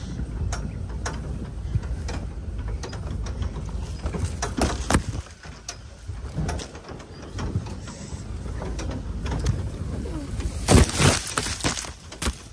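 A Ford 4x4 crawling over a rough dirt track: a low engine rumble under frequent clicks and knocks as the body and suspension rattle over the bumps. About eleven seconds in comes a loud rush of scraping as palm fronds sweep across the vehicle.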